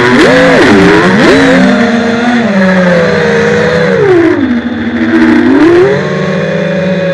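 FPV drone's electric motors and propellers buzzing loudly as heard from the onboard camera, the pitch swooping up and down with the throttle: a quick rise and fall about a second in, a dip around the middle, and a climb back near the end.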